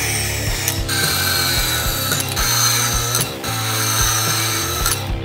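Metal-cutting band saw running, its blade cutting through a steel rod with a steady high hiss that shifts abruptly in level a few times. Background rock music plays underneath.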